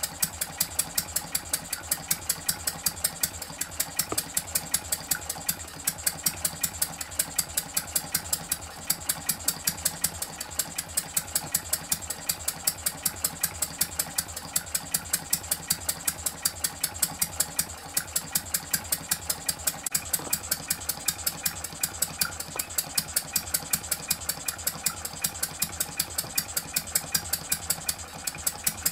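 Twin-cylinder model hot-bulb semi-diesel engine running steadily on kerosene, with a fast, even ticking beat from its running gear.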